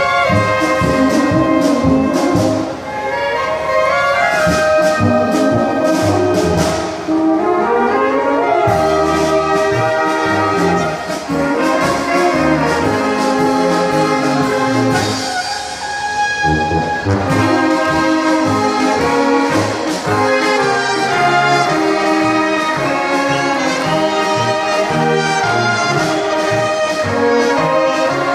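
German-style wind band (Blasmusik) playing a polka live: clarinets, flugelhorns, trumpets, tenor horns and tubas over a steady beat.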